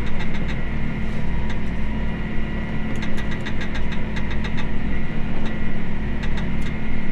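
Tractor engine running steadily with a constant drone and low rumble. Short runs of light clicking come about three seconds in and again near the end.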